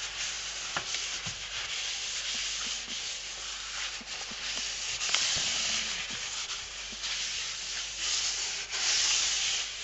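A paper towel wiped back and forth across an enamelled gas stovetop: a steady dry rubbing that swells louder about five seconds in and again near the end, with a few light knocks.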